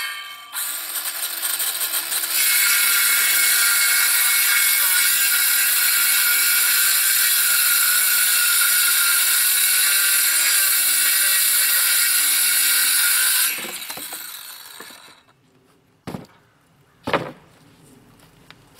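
Circular saw cutting through an OSB sheet: a steady high whine of the blade in the wood that eases briefly about half a second in, then runs on for about 13 seconds before the blade spins down. Two sharp knocks follow near the end.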